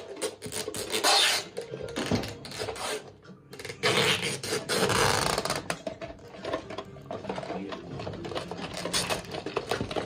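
Small wooden partridge shipping boxes being handled and closed: wood scraping and rubbing on wood, with light knocks and two louder stretches of scraping, about a second in and again around four to five seconds in.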